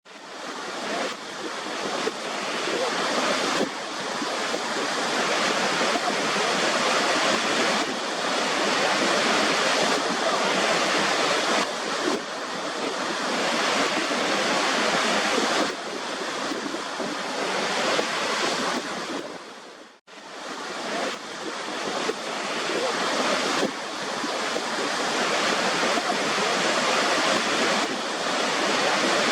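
Waterfall water rushing in a steady, even hiss. It cuts out almost completely for a moment about twenty seconds in, then swells back.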